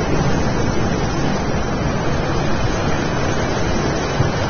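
Continuous low, rushing rumble with no separate bangs or blasts.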